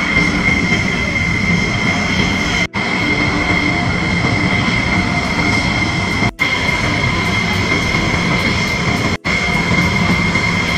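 Jet engines of F-16 fighter jets running at idle: a loud, steady whine with a fixed high tone over a rumble, broken by three brief dropouts in the sound.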